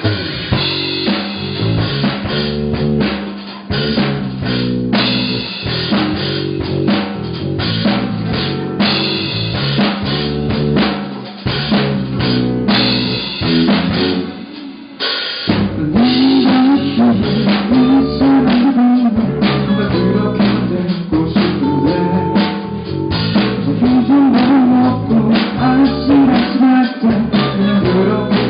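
Live band playing an instrumental intro: drum kit with snare and bass drum driving a steady beat under bass and guitar. About halfway through the music briefly drops back, then the full band comes in louder.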